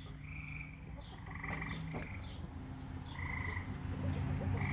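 Frogs calling in a chorus: short trilled calls, each about half a second long, come several times, over a faint low steady hum.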